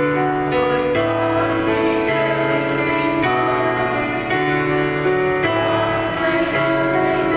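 Karaoke backing track of a Vietnamese Catholic hymn: sustained, steady chords over a slow-moving bass line.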